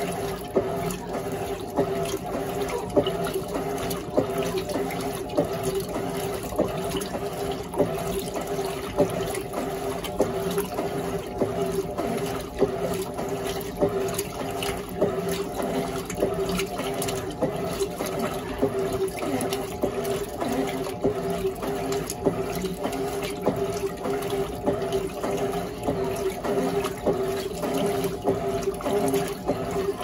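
Top-loading Electrolux Turbo Limpeza 10.2 kg washing machine agitating a full tub of water and clothes: steady sloshing and splashing over a constant motor hum.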